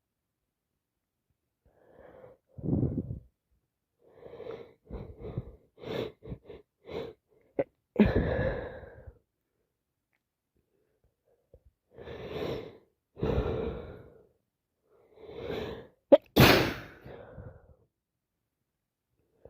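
A woman with a heavy head cold sneezing over and over, with short gasping catches of breath building up between the sneezes. The loudest, sharpest sneeze comes near the end.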